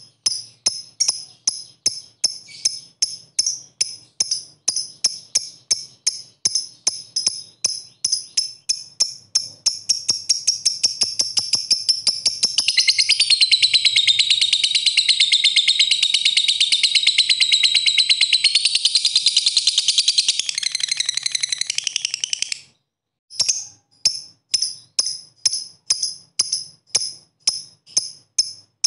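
Fischer's lovebird calling: a run of sharp, high chirps at about three a second (the 'ngetik' ticking) that quicken and run together, about twelve seconds in, into one long rattling trill, the 'ngekek', held for about ten seconds. The trill breaks off, and after a short pause the separate chirps start again.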